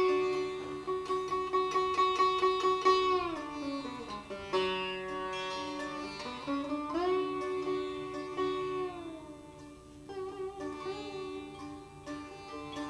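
Sitar played solo in Hindustani classical style, without tabla: plucked notes sustained and bent in long pitch glides (meend), sliding down about three seconds in, rising again around seven seconds and sliding down once more near nine seconds. Quick repeated strokes sound over the held note in the first few seconds.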